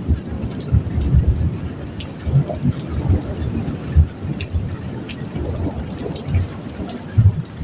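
Heavy rain falling and dripping, with irregular low rumbling thuds and scattered sharp ticks of drops striking.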